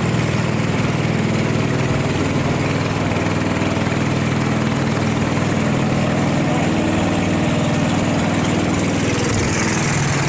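Small rabeta long-tail boat motor running steadily at cruising speed, pushing a canoe along, with water rushing along the hull.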